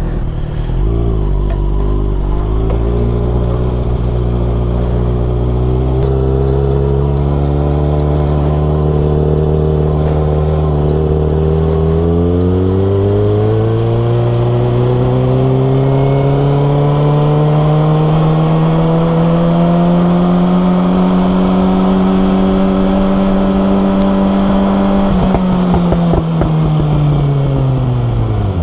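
A 2020 Kawasaki Ninja ZX6R's inline-four engine under way. Its note climbs gradually, climbs again about twelve seconds in, holds steady, then falls over the last few seconds as the bike slows.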